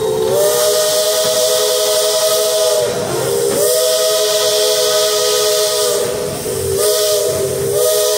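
Chime steam whistle on the Walter E. Disney, a Baldwin 4-6-0 steam locomotive, sounding three long blasts, each sliding up in pitch as it opens, with the third starting near the end. A high steam hiss runs with each blast.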